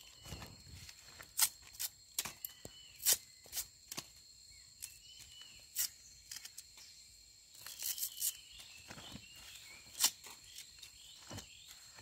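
A machete cutting and peeling the husks off bitter bamboo shoots: sharp snaps and cracks at irregular intervals, about one every second or two.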